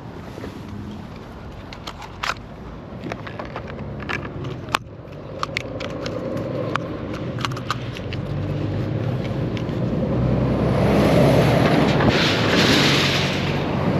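A road vehicle passes close by. Its engine and tyre noise build up over several seconds, peak near the end and begin to fade. Scattered light clicks and taps come in the first half.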